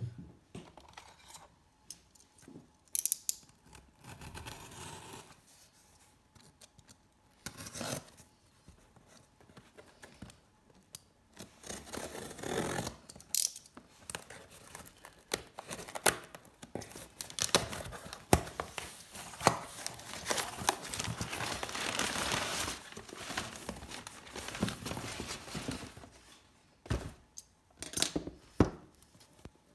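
Packing tape being torn off a cardboard shipping box and the cardboard flaps pulled open, with scraping, crinkling and handling noises. There is a long stretch of tearing and rustling in the middle, and a few sharp knocks near the end.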